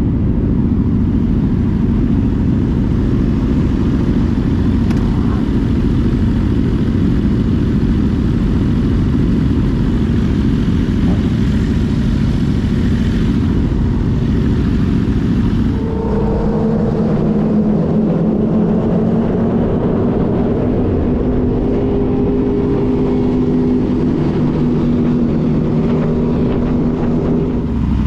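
Yamaha FZ-09's 847 cc inline three-cylinder engine running while riding, with heavy wind rush on the microphone. About halfway through the wind drops away and the engine's note comes through clearly, holding steady with slight rises and falls in pitch, before the wind rush returns near the end.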